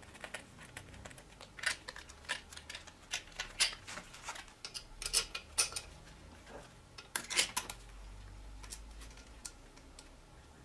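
Front mudguard being fitted to a bicycle suspension fork: its mounting hardware and plastic guard clink and tap against the fork in scattered sharp clicks, the loudest about seven seconds in, with only faint handling noise after that.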